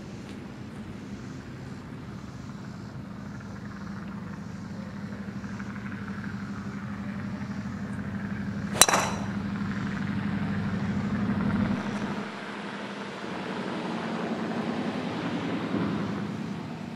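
A golf driver striking a teed ball once: a single sharp crack about nine seconds in. Under it, a steady engine drone from a vehicle or aircraft slowly grows louder and drops away a few seconds after the shot.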